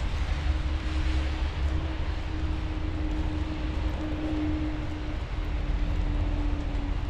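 City street traffic: a steady low rumble with a vehicle engine's hum held at one pitch, sagging slightly in the second half.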